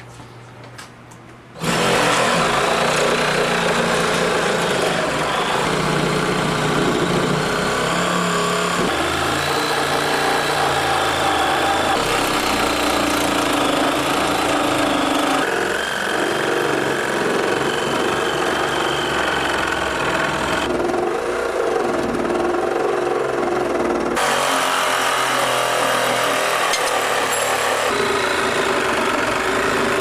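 Cordless reciprocating saw starting up about two seconds in and running continuously as it cuts through the wall studs, its pitch shifting several times as the cutting goes on.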